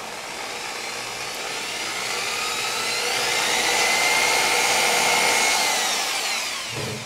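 Corded electric drill running continuously while drilling a pilot hole for a tweeter screw in a wooden speaker baffle. Its motor whine climbs gradually in pitch and loudness, then winds down near the end.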